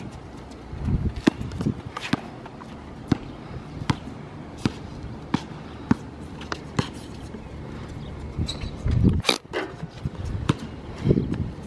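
Basketball being dribbled on a hard court: sharp bounces about every three-quarters of a second, with a louder hit about nine seconds in.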